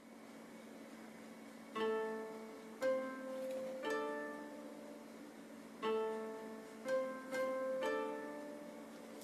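Background music: plucked-string notes, about one a second, over a held low tone.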